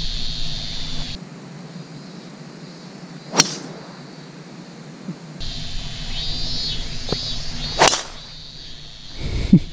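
A driver striking a golf ball off the tee, a sharp crack heard twice about four and a half seconds apart as the same tee shot is replayed. Insects shrill in the background, and there is a short low thump near the end.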